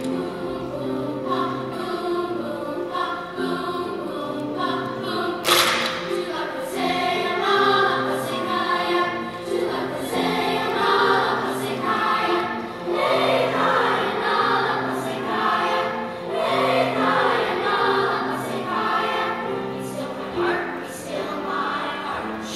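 Sixth-grade children's choir singing together, with a short sharp hiss about five and a half seconds in.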